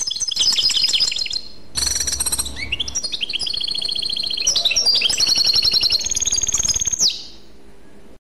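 Songbird singing fast, high trills and twitters, in short spliced stretches that change abruptly every second or two. The last long trill cuts off about seven seconds in.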